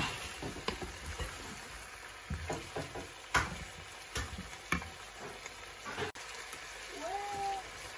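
Chicken thighs and vegetables sizzling steadily in a frying pan, with a wooden spatula scraping and knocking against the pan as they are stirred.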